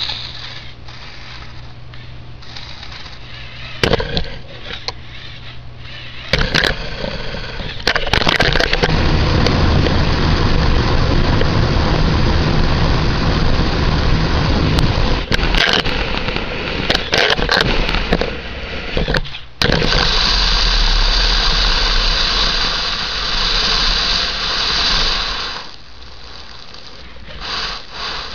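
Lego Power Functions electric motors and plastic gears whirring loudly right at the microphone, with knocks and scraping. The whirring starts about eight seconds in, breaks off briefly about two-thirds of the way through, and dies down near the end.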